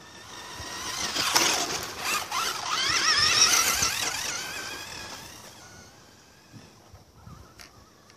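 Kyosho Optima RC buggy's Dynamite 15-turn 540 brushed electric motor and drivetrain whining as the car speeds past on dirt, the pitch wavering up and down with the throttle. The whine swells as the car comes close, then fades as it drives away.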